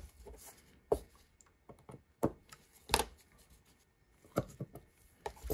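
About five sharp clicks and light taps, a second or so apart, over faint rustling: gloved hands pulling the FEP film tight and handling the vat frame.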